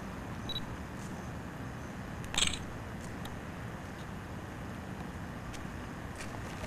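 Handling noise of a handheld camcorder over a steady low hum and hiss, with a few faint clicks and a short scraping hiss about two and a half seconds in.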